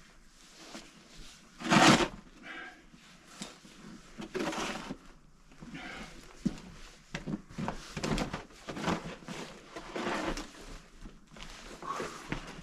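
Irregular crunching and scuffing in deep snow, with the loudest crunch about two seconds in.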